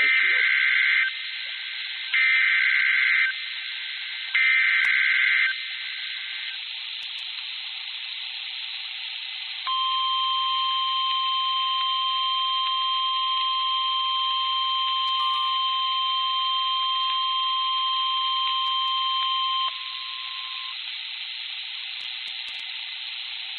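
Emergency Alert System broadcast: three one-second bursts of SAME header data, a harsh two-pitch digital warble, sound over radio hiss. After a pause of several seconds, the steady single-pitch weather radio warning alarm tone (1050 Hz) sounds for about ten seconds, then cuts off, leaving the hiss.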